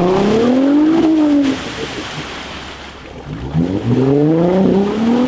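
Jeep Wrangler engine revved hard twice while the Jeep is bogged in a deep mud hole, trying to power through. The pitch climbs, peaks about a second in and drops away. It climbs again from about three and a half seconds in and is cut off at the end.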